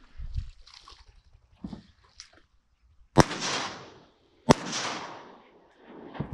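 Two 28-gauge shotgun shots a little over a second apart, each trailing off in a short echo.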